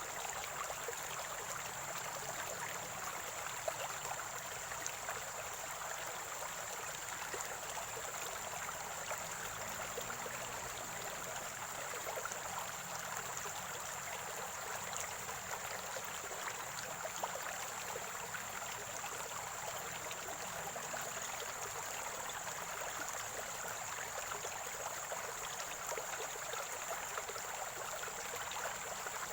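Water from a natural spring flowing and gurgling steadily over a small stream bed, with a faint high-pitched steady tone above it.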